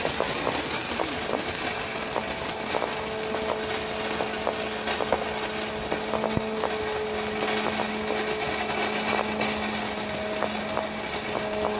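Steady rushing noise with scattered sharp crackles, over a steady motor-like hum.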